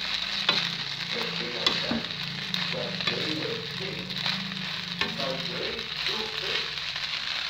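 Fried rice with freshly added oyster sauce sizzling in a hot nonstick pan while a plastic spatula stirs and scrapes it, with scattered clicks of the spatula against the pan. A low hum runs underneath and stops about two-thirds of the way through.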